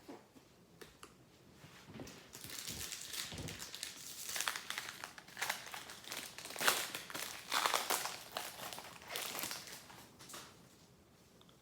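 A foil trading card pack wrapper being crinkled and torn open by hand, a dense crackling rustle that starts about two seconds in and dies away near the end.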